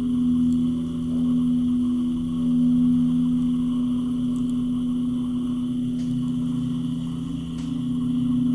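Dover hydraulic elevator's pump motor running while it raises the car, a steady musical hum the rider likens to a trombone.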